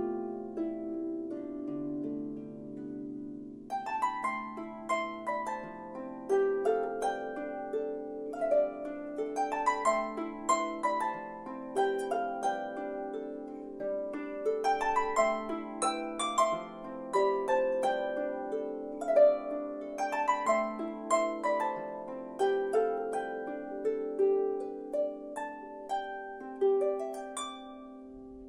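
Solo lever harp playing a melody. It opens with a few seconds of ringing low chords, then from about four seconds in moves to quick plucked runs and broken chords over sustained bass notes, and settles into last ringing notes near the end.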